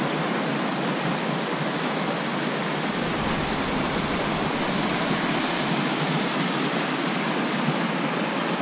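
Cautley Spout waterfall: a mountain beck cascading over rocks, heard as a steady rush of water.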